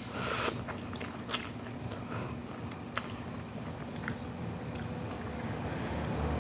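Close-up eating sounds of instant noodles with meatballs: chewing with many short, irregular wet clicks and smacks, and a brief noisy burst about a quarter second in. A faint low steady hum sits underneath.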